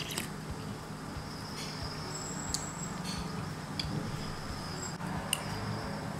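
A metal spoon clicking faintly against a ceramic soup bowl a few times while soup is eaten, over a steady low hum.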